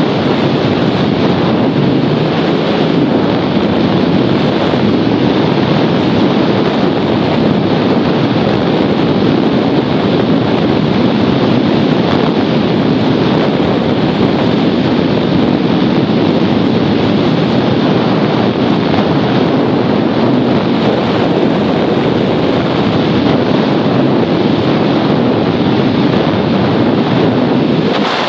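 Steady, loud wind rush buffeting the microphone from the airflow of a hang glider in flight.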